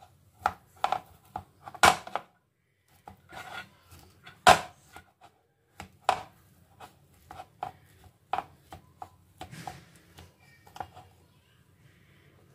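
Kitchen knife cutting through a slab of set paneer burfi, the blade knocking and scraping against the tray beneath in irregular strokes, two of them louder about two seconds and four and a half seconds in.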